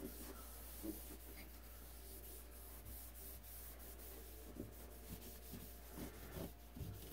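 Small felt pad being rubbed back and forth over a Bakelite radio cabinet: a faint, soft rubbing with a few light knocks.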